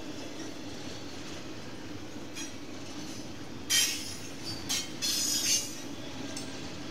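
Freight train cars rolling past with a steady low rumble. A few short, loud metallic screeches from the wheels come between about three and a half and five and a half seconds in.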